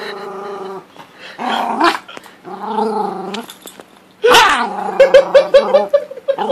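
Small dog growling in rough play, a few drawn-out growls followed by a loud call and then a quick run of short yips about five seconds in.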